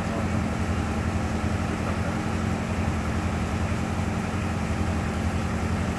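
Ship's engine running with a steady low drone and no change in speed.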